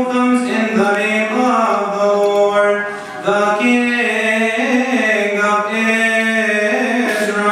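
A deacon's solo male voice chanting a Coptic Orthodox liturgical melody, holding long notes with slow turns in pitch, with a short break for breath about three seconds in.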